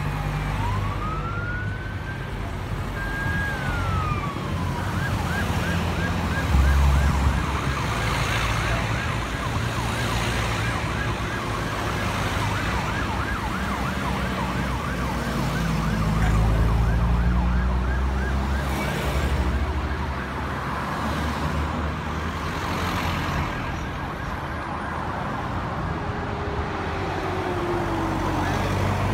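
Sirens on a slow convoy of security-patrol and emergency vehicles driving past. A wail rises and falls for the first few seconds, then a fast yelping siren repeats until about twenty seconds in. Underneath, the engines of the passing cars and bakkies run steadily.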